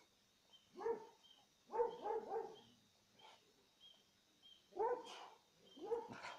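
A dog barking in short bursts: a single bark, then a quick run of three, then two more barks near the end.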